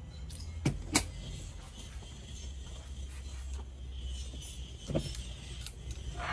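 A few sharp clicks from the air rifle being handled and loaded: two close together about a second in, then another near five seconds, over a steady low hum.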